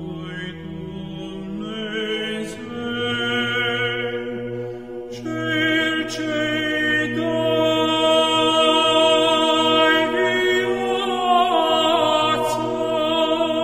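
Orthodox church chant: voices sing a slow, ornamented melody over a steady held low note.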